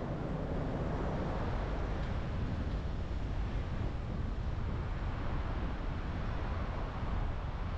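Steady road noise from a car being driven: an even low rumble with hiss above it, unchanging throughout.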